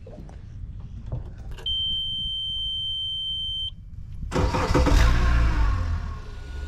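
A steady high electronic beep lasting about two seconds, then the boat's outboard motor cranks and starts a little past the middle and runs on steadily.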